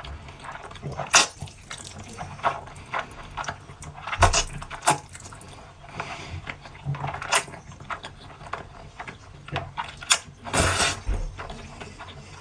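Close-miked noodle eating: irregular wet slurps, chewing and lip smacks, with several louder slurps spread through.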